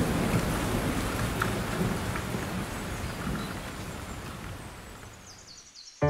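Rain with thunder, fading out steadily over a few seconds. A few faint high chirps come through near the end.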